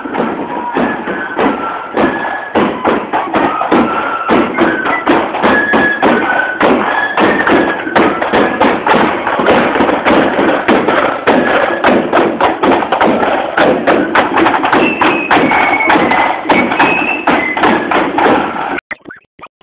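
Marching band of flutes and drums playing a tune on parade: a high stepping melody over steady snare and bass drum beats. The music cuts off suddenly near the end.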